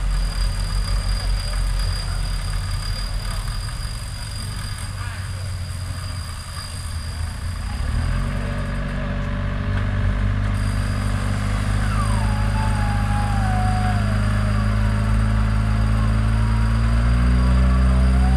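Off-road vehicle engine running, uneven at first, then from about eight seconds in holding a steady, higher note that grows louder towards the end. A faint tone glides down about twelve seconds in and rises again near the end.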